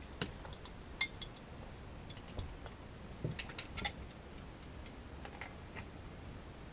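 Scattered light clicks and metallic clinks as PEX female adapters are threaded onto a water-line flow switch and tightened, with a small cluster of clinks about three to four seconds in.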